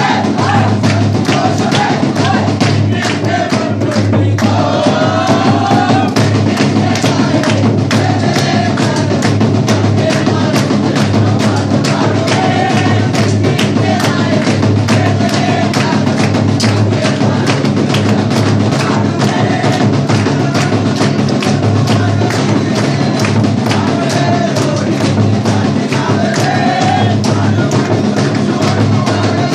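Group singing a Christmas carol in chorus, clapping along to a quick steady beat played on a double-headed hand drum.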